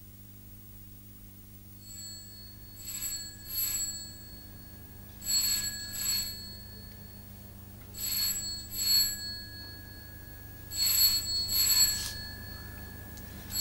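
Desk telephone ringing in a double-ring pattern: four pairs of short rings, about two and a half seconds apart, the first starting about three seconds in.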